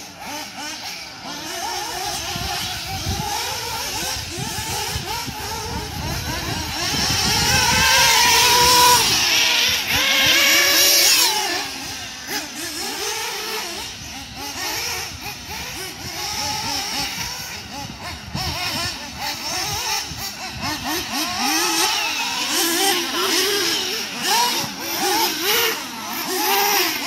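Several nitro RC off-road cars' small two-stroke glow engines revving up and down as they race round a dirt track, the pitch rising and falling constantly. The loudest pass comes about eight to eleven seconds in, with a rising high whine.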